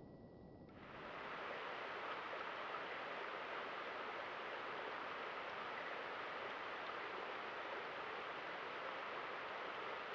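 Steady hiss with a thin, high steady whine above it, the trail camera's own recording noise. It starts about a second in, after a quieter stretch.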